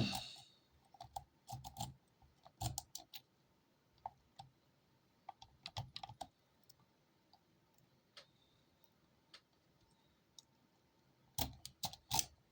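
Raker pick working the pins of a Holex padlock under tension: small, irregular metallic clicks and light scrapes. A louder scrape comes right at the start, the middle is sparse, and a quick run of clicks comes near the end.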